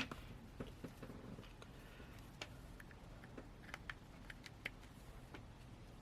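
Faint, scattered light clicks and taps from handling a smartphone and plugging in its charging cable, with one sharper click at the start and a small cluster about four seconds in.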